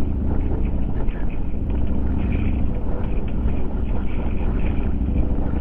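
Motorcycle engine running steadily while riding along, with wind and road noise.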